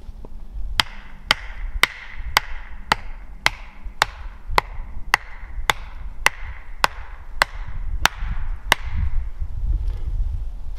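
A wooden stake being hammered into the ground with the back of a hatchet: about fifteen sharp, even wooden knocks, nearly two a second, that stop about a second before the end.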